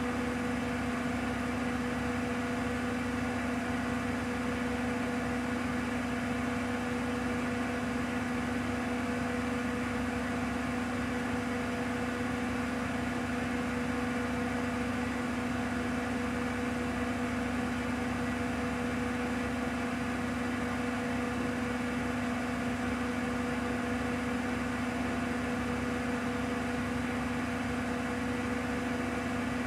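Bosch WAQ28470GB front-loading washing machine spinning its empty drum at full speed, 1400 rpm: steady, even running with one constant whine over the rush of the drum.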